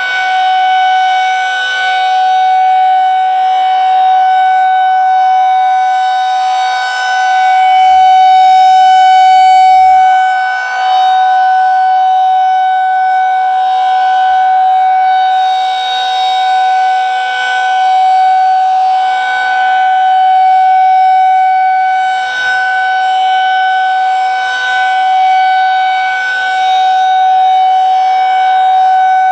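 Federal Signal 2001-SRNB outdoor warning siren sounding its steady alert tone, one held pitch that swells and fades every couple of seconds as the rotating head sweeps past.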